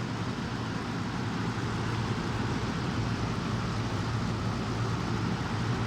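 Lennox air conditioner running: a steady low hum under an even rush of air, with no change in pitch or level.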